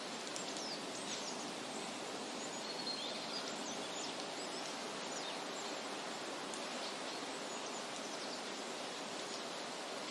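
Steady outdoor noise, like running water, with faint high bird chirps and short whistles scattered over it, mostly in the first half.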